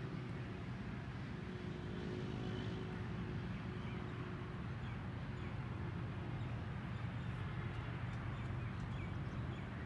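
Distant diesel locomotive of an approaching passenger train, a low steady engine hum, with faint bird chirps over it.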